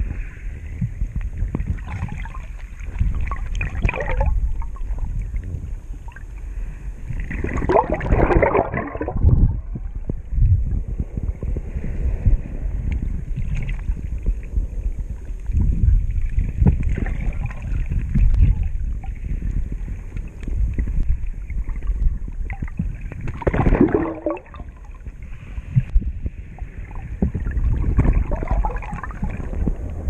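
Shallow seawater sloshing and rumbling around a submerged action camera, heard muffled from underwater, with louder gurgling swishes twice.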